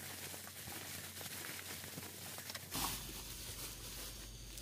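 Bubble wrap crinkling and rustling faintly as hands handle and unwrap a phone, with one louder rustle about three seconds in.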